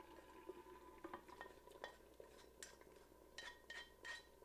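Faint scraping and light clinks as chopsticks scrape pickled mustard greens out of a wok into a ceramic clay pot. The clinks come more often in the second half, and a few of them ring briefly.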